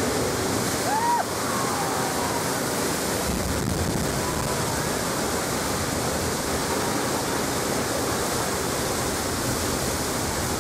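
Staged flash-flood water crashing down over rocks and splashing right beside an open-sided ride vehicle: a steady, loud rush of water.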